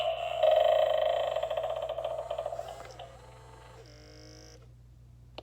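Animated brass eyeball doorbell prop playing its electronic sound effect through its small speaker: a pulsing, rattling pitched sound that fades over about three seconds, then a run of falling tones that stops about four and a half seconds in.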